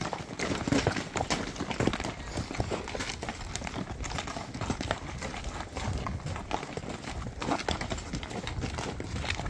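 Horses' hooves walking over a loose, rocky trail: an irregular run of clopping steps with stones knocking underfoot.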